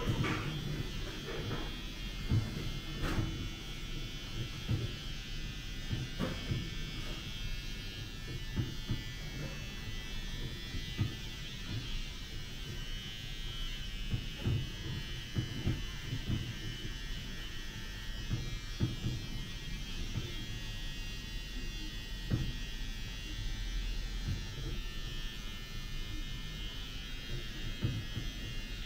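Hair being scrubbed during a barbershop shampoo, heard as irregular soft rubbing and thumps. A small electric motor buzzes steadily underneath.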